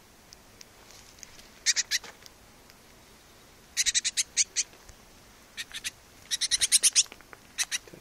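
Young great tit calling in short bursts of rapid, harsh, high-pitched chattering notes, five bursts in all, the longest of them about ten notes.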